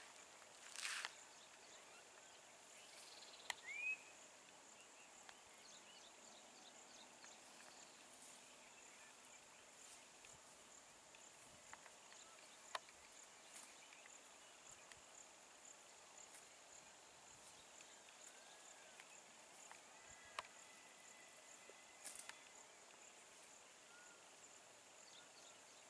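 Near silence: a faint, steady, high-pitched insect drone, with a few short chirps and scattered soft clicks.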